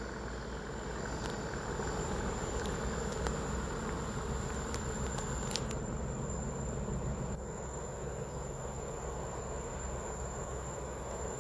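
Steady, distant low rumble of the approaching log train's diesel locomotives, a Class 97 and a Class 37.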